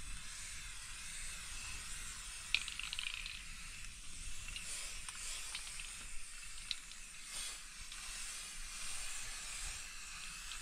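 Aerosol spray-paint can hissing as paint is sprayed onto a concrete block wall, with a sharp click about two and a half seconds in.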